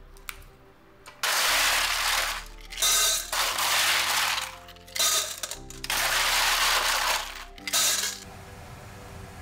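Ice cubes clattering and clinking as they are grabbed by hand from a refrigerator's plastic ice drawer and dropped into a stainless steel bowl. Several loud rattling bursts come in quick succession, starting about a second in.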